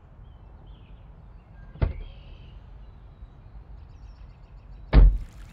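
Car door: a sharp click about two seconds in as it opens, then a louder, heavier slam about five seconds in as it shuts.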